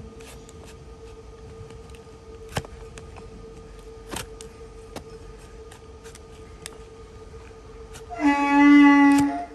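Large hoof knife paring a donkey's hoof on a wooden stand: scattered scrapes and a few sharp clicks of the blade on the horn, over a faint steady hum. Near the end a loud, steady, pitched tone sounds for about a second.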